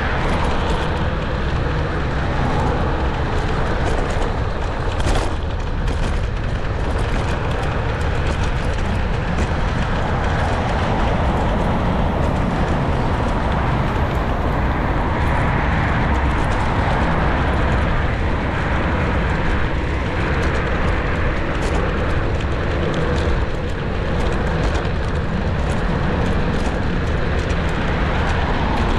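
Steady wind rush on the microphone with tyre and road rumble while riding a Niu KQi3 Pro electric scooter, with a few sharp knocks from bumps about five seconds in.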